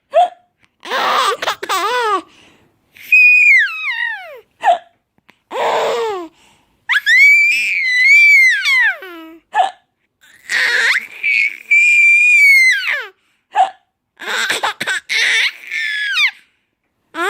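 A five-month-old baby's high-pitched squealing laughter comes in bursts, several sliding down in pitch and one long squeal rising and falling. Each round of laughing follows a short hiccup; the hiccups come about every four to five seconds.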